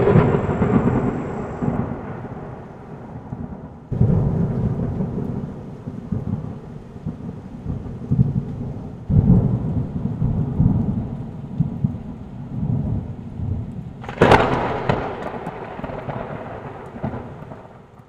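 Thunder rumbling over rain: four claps, each breaking suddenly and rolling away over a few seconds. The last, about fourteen seconds in, opens with a sharp crack.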